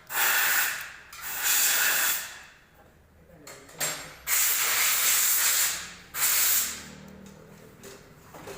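A pressurised spray hissing in five bursts, the longest about a second and a half and one very short, each starting and stopping sharply.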